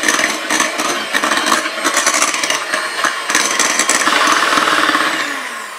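Electric hand mixer running at speed, its wire beaters whipping custard into whipped cream and clicking against the glass bowl. Near the end the motor winds down and the sound falls away.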